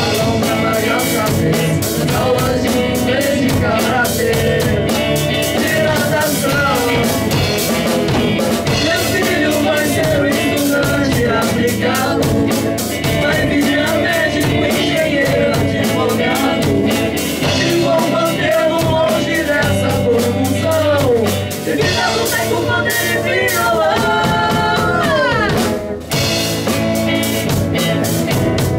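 Rock band playing live in a rehearsal room: drum kit and guitars, with singing over them.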